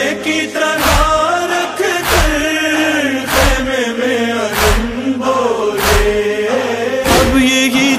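Male voices chanting a noha, a Muharram lament, in a sliding melody over a steady heavy beat struck about every 1.2 seconds, six beats in all.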